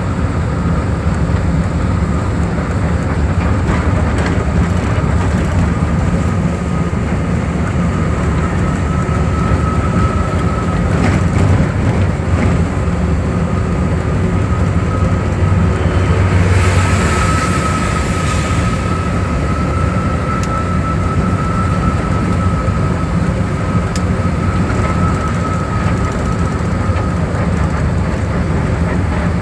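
Steady engine and road rumble inside a moving road vehicle, with a faint steady whine. About two-thirds of the way through there is a brief hiss lasting a couple of seconds.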